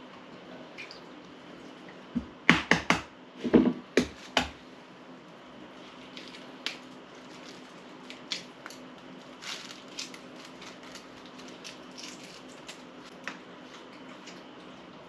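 Hard-boiled eggs being cracked and peeled by hand: a cluster of sharp taps and cracks about two to four seconds in, then scattered light crackles of shell coming away.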